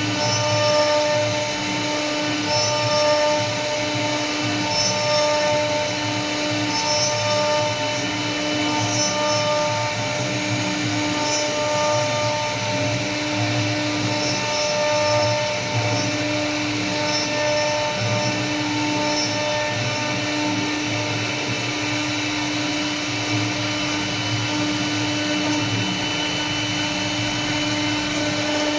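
CNC wood router spindle running as it carves wood: a steady whine that swells and dips every second or two as the bit's cutting load changes.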